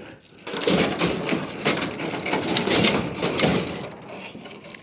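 Rapid rattling and clinking of scrap metal being handled and sorted by hand, a dense run of small knocks that starts about a third of a second in and fades near the end.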